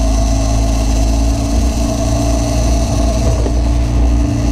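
Outboard motor running at a steady speed, a constant drone over a low rumble.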